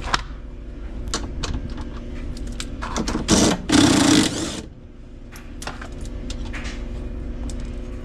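Wrench work on a 13 mm bolt under a washing machine: scattered light metal clicks, and two short, loud rasping bursts about three and four seconds in, typical of a ratchet being spun.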